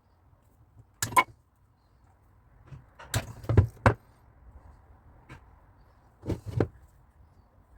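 Sharp knocks and clicks of metal whisk and strainer parts being handled and fitted together: a pair about a second in, a quick run of four a couple of seconds later, and another pair near the end.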